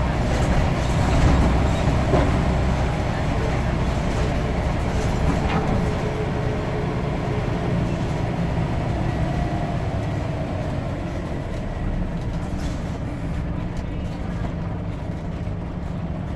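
Scania N94UD double-decker bus engine running steadily with a low rumble and some rattles, easing off slightly toward the end.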